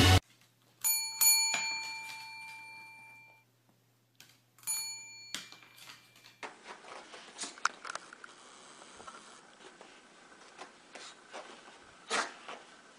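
A desk service bell struck by a dog: two quick dings about a second in that ring out and fade, then two more about four and a half seconds in. After that, faint scuffling with light clicks.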